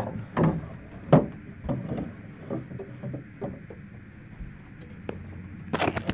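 A series of short knocks and thumps, about one every second at first, the loudest about a second in, followed by a brief sharper clatter near the end.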